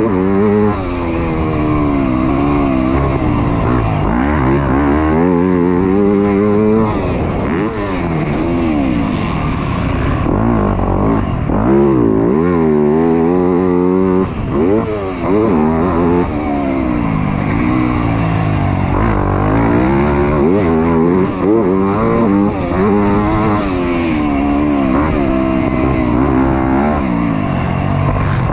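2024 Yamaha YZ250F's 250 cc four-stroke single-cylinder engine under load on a motocross track, its pitch rising and falling over and over as the throttle opens and closes, heard close up from a helmet-mounted camera.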